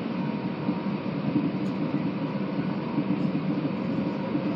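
Passenger train running along the line, heard from inside the carriage: a steady running noise of wheels on rail, with a faint steady whine.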